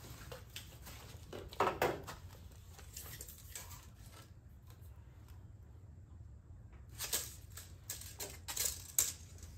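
Scattered knocks and clicks of hand tools being handled against a walnut board and wooden workbench, with two louder knocks about two seconds in and a cluster of clicks near the end. A steady low hum runs underneath.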